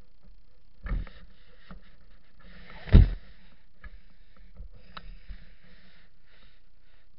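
Handling noise from a gloved hand on the camera body: a bump about a second in, a much louder thump about three seconds in, then soft scratchy rubbing of glove fabric against the camera.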